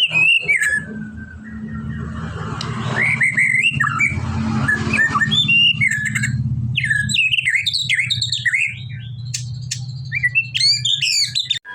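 White-rumped shama singing a varied run of loud whistled and chattering phrases, faster and more rapid in the second half, over a steady low hum.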